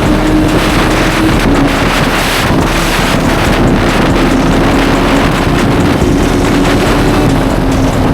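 Suzuki GSX-R1000 sport bike at highway speed: its inline-four engine holds a nearly steady high note under heavy wind noise on the microphone.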